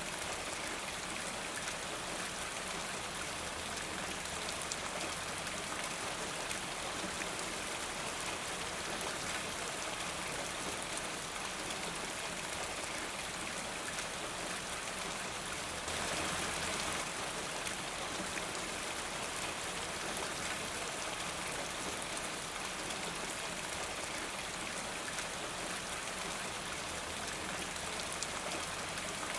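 Steady rain falling, an even hiss flecked with small drop ticks. It swells briefly a little past halfway through.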